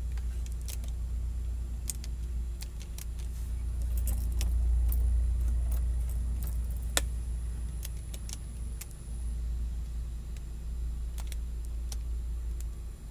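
Steady low rumble inside a Honda S2000's cabin, with a dozen or so sharp clicks scattered through as buttons on the dash head unit are pressed. A faint high whine stops about nine seconds in.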